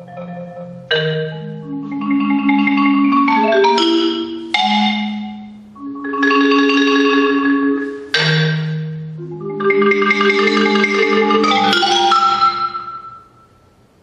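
Solo marimba playing sustained chords in three loud swells. Each swell opens with a sharp accented stroke, at about one, four and a half and eight seconds in. The music fades away near the end.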